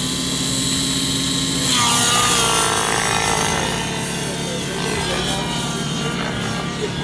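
Nitro-fuelled RC model helicopter's engine and rotor running at high speed. About two seconds in it grows louder and its pitch sweeps down and wavers as it flies.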